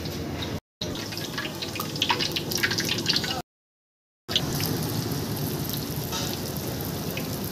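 Wet clicks and splashes of chicken pieces being worked by hand through thick spiced batter, then, after a short break, hot oil in a kadai giving a steady sizzle.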